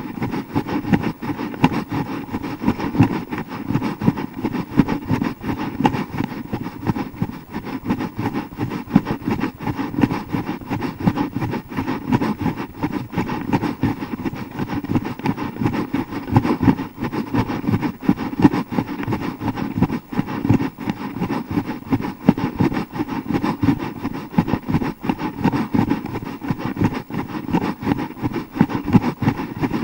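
Wind and movement noise on a YI 4K+ action camera's built-in microphone as the runner carrying it jogs: a steady, irregular rumbling buffeting with no pauses.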